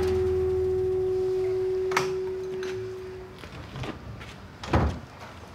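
A held, pure-sounding tone over a low hum, fading out about three seconds in. Then a faint background with a few short sharp clicks, the loudest one near the end.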